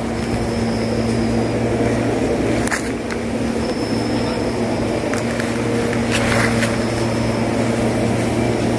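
Steady low mechanical hum with a faint high whine, like a motor running, with a few brief clicks.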